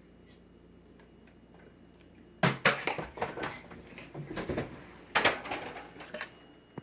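Two loud sudden knocks, one about two and a half seconds in and another near five seconds, each followed by a run of clattering and rattling that dies away.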